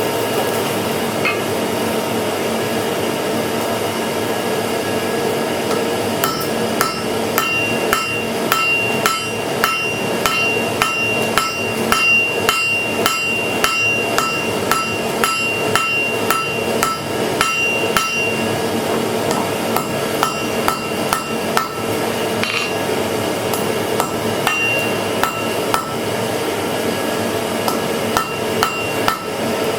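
Blacksmith's hammer striking iron on an anvil in a regular rhythm of about two blows a second, each blow leaving a short metallic ring. For the first several seconds only a steady hum is heard. The blows pause briefly past the middle, then resume.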